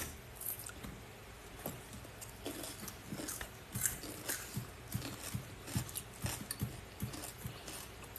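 Close-miked eating sounds: chewing with soft wet mouth smacks and small clicks at an irregular pace.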